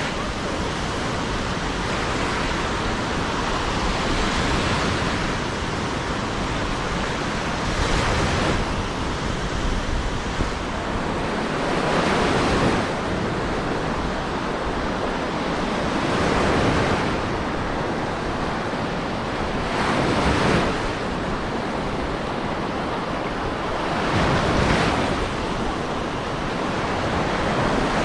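Sea waves breaking on a beach: a steady surf wash that swells with each breaking wave about every four seconds.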